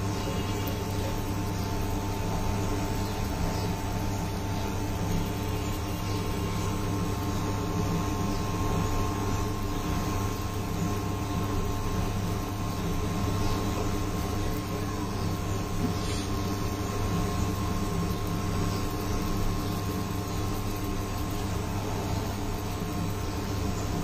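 Induction cooktop running steadily under a lidded pan of simmering curry: an even hum with fan noise and a faint steady whine above it, unchanging throughout.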